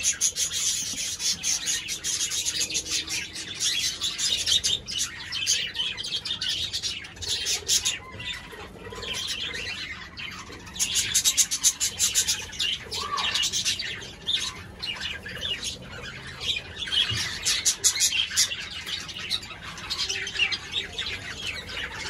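A flock of cockatiels chirping and chattering without a pause, many quick calls overlapping, with louder bouts now and then.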